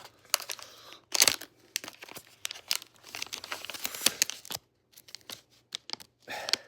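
A coin mystery pack's packaging being torn open and crinkled by hand, irregular crackling tears, loudest about a second in, thinning out to a few crinkles in the last two seconds.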